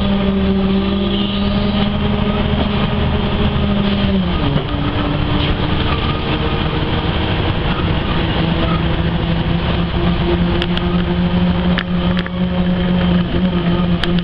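Ikarus-435.17 articulated city bus driving, heard from inside the cabin. Its engine and drivetrain run with a steady whining note that drops sharply about four seconds in, at a gear change, then slowly climbs again as the bus gathers speed. A few light rattles come near the end.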